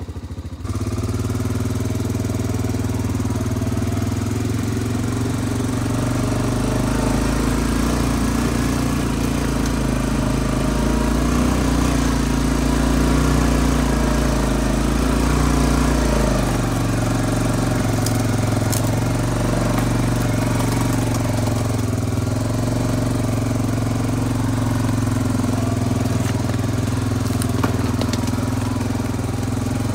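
Honda Foreman ATV's single-cylinder engine running steadily as the quad rides along a trail, its note shifting about halfway through.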